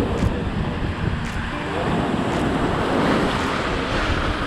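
Surf breaking and washing over a rocky shoreline, with wind buffeting the microphone in a steady low rumble.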